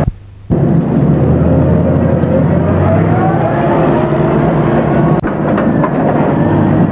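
Steady drone of a fishing trawler's engine and deck machinery, with a faint rising whine in the middle and a single sharp click about five seconds in, after a brief dropout at the very start.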